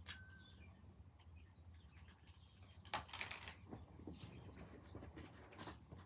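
Plastic fidget toys being handled: faint rustling with a few light clicks, the sharpest about three seconds in, over a low steady hum.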